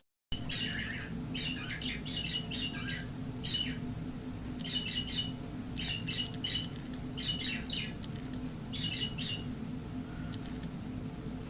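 Motion-sensor toy parakeet chirping electronically in about eight short bursts over some nine seconds, with a faint last chirp near the end. It is going off with no one near it. A steady low hum lies underneath.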